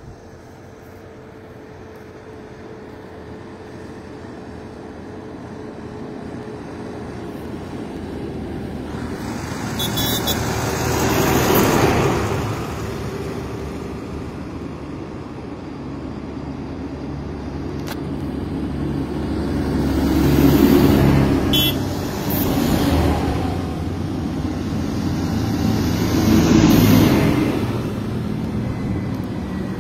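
A column of farm tractors with diesel engines running, approaching along the road and growing steadily louder. Three times a vehicle passes close, swelling and fading: about a third of the way in, about two-thirds in, and near the end.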